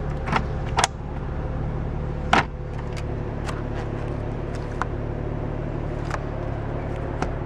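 A few short plastic clicks and knocks of interior trim being worked: the sun visor is pulled down and its vanity-mirror cover is slid open. A steady low hum of the car runs under them.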